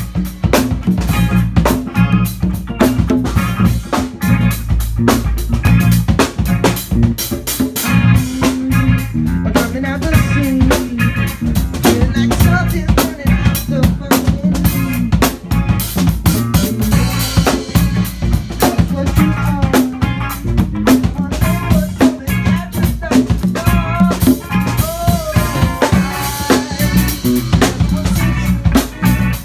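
A rock band playing loud and live: a drum kit keeps a steady beat with snare and bass drum under a strummed single-cutaway electric guitar.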